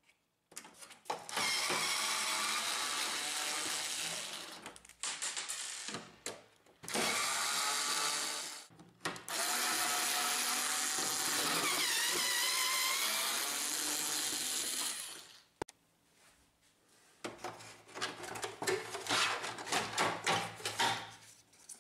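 Small cordless electric screwdriver whining in several long runs as it backs out the screws holding a laser printer's scanner glass, its pitch shifting as the load on the screw changes. Near the end come irregular clicks and knocks of the plastic scanner parts being lifted away.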